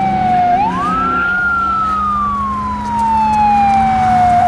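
Police car siren wailing: the pitch slides down, sweeps quickly back up about half a second in, then falls slowly again.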